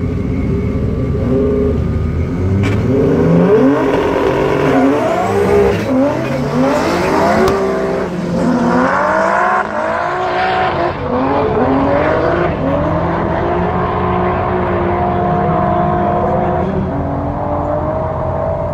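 Two drag cars launching and accelerating hard down the strip, their engines climbing in pitch and dropping back at each gear change, then holding a steadier high note as they get farther away.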